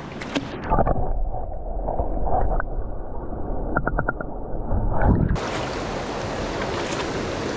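Creek water heard from under the surface: a dull, muffled rushing that starts with a splash going under, with a few quick clicks about four seconds in. About five seconds in it breaks back out into the open, steady rush of the stream's rapids.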